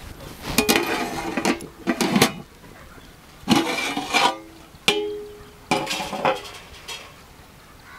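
A steel lid clanking and scraping against the rim of a large steel pot of dum biryani as it is handled and lifted off, in about five separate metallic clatters, some ringing on briefly.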